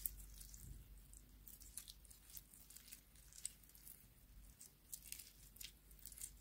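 Purple glitter slime squeezed and stretched between fingers, giving many faint, quick sticky crackles and pops.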